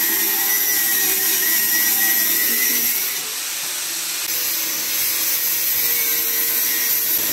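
Electric angle grinder cutting into an old kitchen shelf: a steady, high grinding whine that eases off briefly about three seconds in, then bites again.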